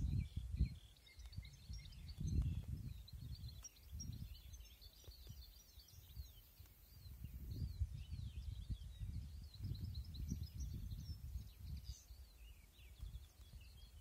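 Many small songbirds chirping and singing at once, quick trilled notes overlapping without pause. Irregular low rumbling gusts of wind on the microphone rise and fall every second or two and are louder than the birds.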